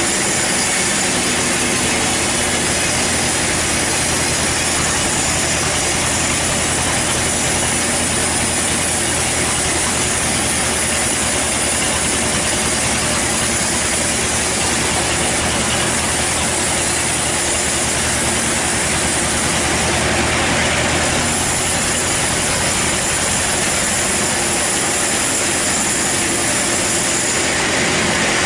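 Vertical band sawmill ripping lengthwise through a teak log: a steady machine drone under the even hiss of the blade cutting the wood.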